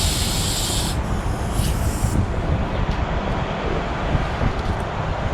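Steady low rumble of background noise, with a short bright hiss right at the start and a fainter, shorter hiss about two seconds in.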